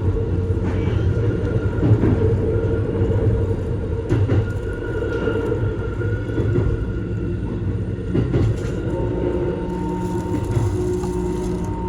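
Keikyu Main Line electric train running on the rails with a steady rumble. A steady tone joins about nine seconds in.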